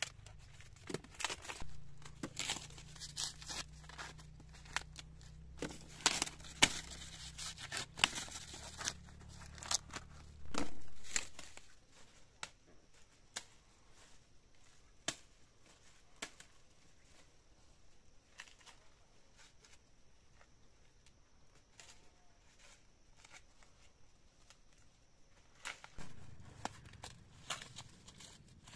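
Dry corn husks being torn and peeled back by hand and ears broken off dry maize stalks: a quick run of sharp snaps, tears and dry rustles. The sound thins to sparse faint crackles in the middle, where a faint steady high-pitched tone runs, and the snapping comes back close near the end.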